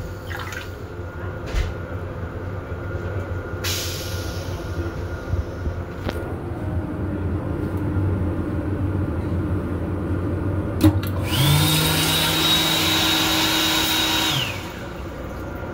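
Faucet in an M7 railcar restroom running for about three seconds, water splashing into the sink basin with a steady high whine that starts and stops with it. The low rumble of the moving train carries on throughout.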